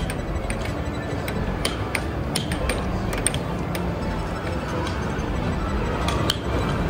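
Air hockey puck clacking against the plastic mallets and the table's rails in sharp, irregular knocks, over the steady din of a busy arcade.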